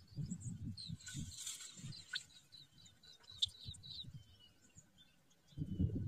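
A small bird chirping in quick runs of short, high notes, over irregular low, muffled bumps and rustles close to the microphone.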